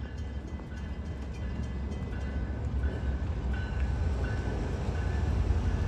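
Union Pacific diesel-electric freight locomotives rumbling as the train approaches and passes, the low engine and rail noise growing steadily louder.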